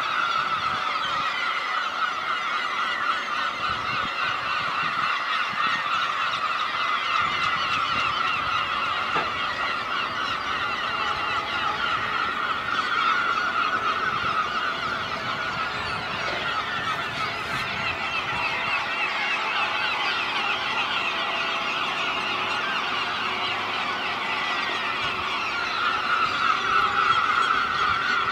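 A large flock of gulls calling all at once, a dense chorus of overlapping calls without a break, a little louder near the end.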